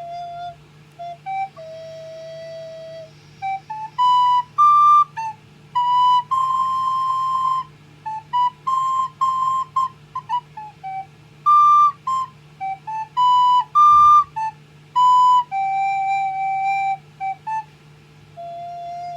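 A child playing a recorder: a melody of separate notes in phrases, with short pauses between them and a steady low hum underneath.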